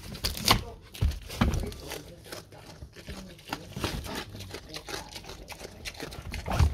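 A pig chewing and crunching pumpkin flesh, its snout nudging the pumpkin over crinkling plastic food wrappers, in irregular crunches and knocks with a louder crunch near the end.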